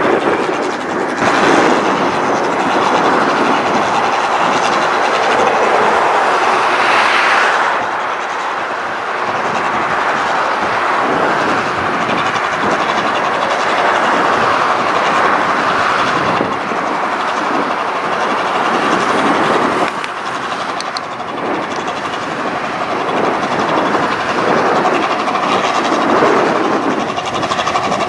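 1545 S combine harvester working a rice crop: its engine and threshing machinery run loud and steady under a continuous clattering rattle.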